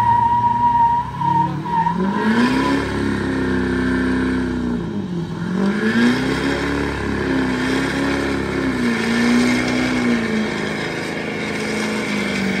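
Truck engine revving hard during a burnout: the pitch climbs about two seconds in, dips briefly around the middle, climbs again and holds with small wobbles, then settles lower and steady near the end.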